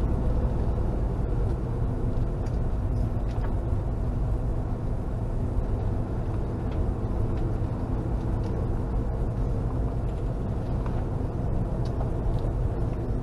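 Steady engine drone and road noise of a motorhome driving at low speed, heard from inside the cab.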